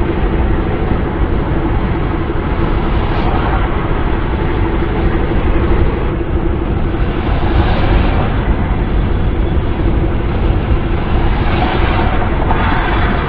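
Wind and road noise of a car driving at speed: a steady low rumble with a constant hum beneath a hiss that swells three times.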